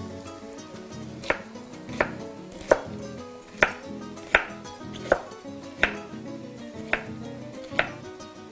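Kitchen knife slicing an artichoke on a wooden cutting board: about nine sharp knocks of the blade hitting the board, one every three-quarters of a second or so.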